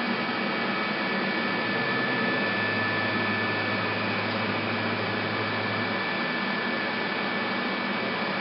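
AVIA FNE 50 N CNC tool milling machine running with a steady hum and two high whining tones while its axes home one at a time to their reference points. A low drive tone comes in about two and a half seconds in and stops about six seconds in, as one axis drive traverses.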